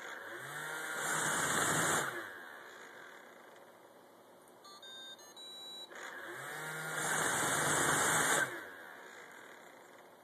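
Roomba robot vacuum's motors whirring up and rising in pitch, then cutting off abruptly, twice, about six seconds apart. A short run of electronic beeps sounds between the two runs.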